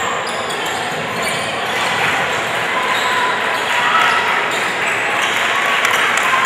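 Basketball bouncing on a hardwood gym floor during play, with steady crowd chatter echoing around the hall.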